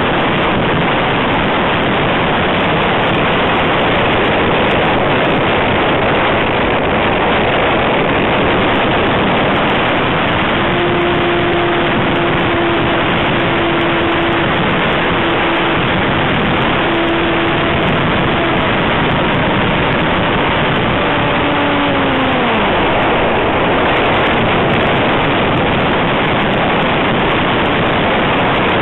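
Cub airplane in flight, heard from an onboard camera: a steady loud rush of air over the microphone with the motor running underneath. About ten seconds in a steady motor hum rises out of the rush, and a little past twenty seconds its pitch drops as the throttle is pulled back.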